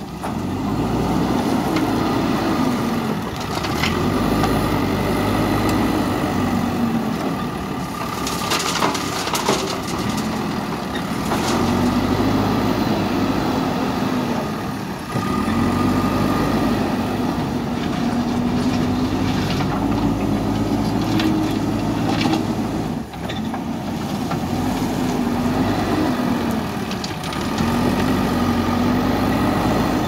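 JCB 3DX backhoe loader's diesel engine running and revving up and down every few seconds under hydraulic load while it digs and loads gravel. A few sharp knocks come around nine seconds in.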